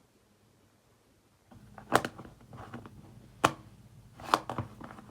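Near silence, then about a second and a half in a few sharp clicks and knocks with softer crackles between them, from something being handled up close.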